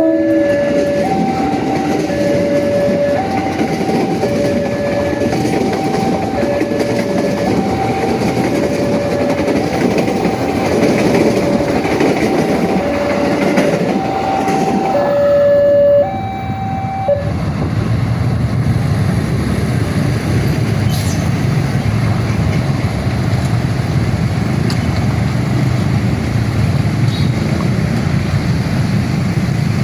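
Railway level-crossing warning alarm sounding a two-tone electronic signal, alternating between a lower and a higher tone about once a second, over the steady noise of a passing train. The alarm stops about sixteen to seventeen seconds in while the train noise goes on.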